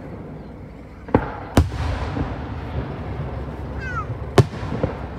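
Aerial firework shells going off: two sharp bangs a little after a second in, then the loudest bang a little over four seconds in with a smaller one just after, and a low rumble rolling on between them.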